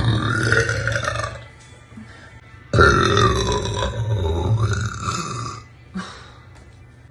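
A woman burping deep and loud: one burp of about a second and a half, then after a pause a longer one of about three seconds whose pitch falls and rises again, and a brief short sound near the end.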